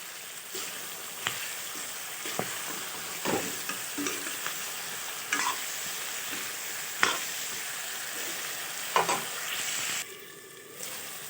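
Chicken pieces sizzling in hot oil in a pan while a spatula stirs them, scraping and knocking against the pan every second or two. The sizzle drops briefly near the end.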